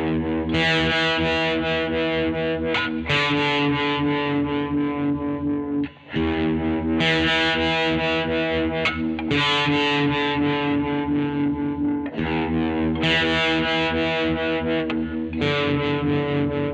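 Distorted electric guitar, a Fender Jazzmaster HS blacktop converted to a 'Jazzblaster', playing ringing chords through an amp. A new chord is struck about every three seconds and held.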